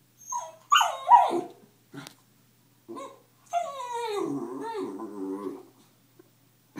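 Puppy yipping and whining at her own reflection in a mirror: loud, high yips about a second in, two short sounds after, then one long wavering whine-growl of about two seconds.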